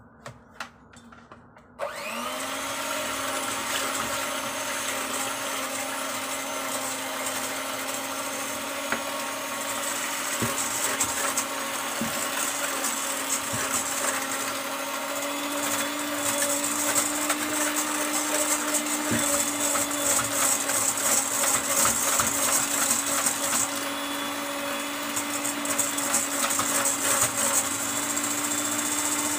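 A few clicks, then an electric hand mixer switches on about two seconds in and runs steadily, its beaters whipping eggs in a stainless steel bowl. The motor's pitch rises slightly partway through, and a fast rattling of the beaters against the bowl grows stronger in the second half.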